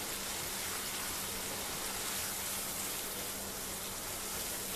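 Onion paste and ground spices frying in hot oil in a pan while being stirred: a steady sizzling hiss.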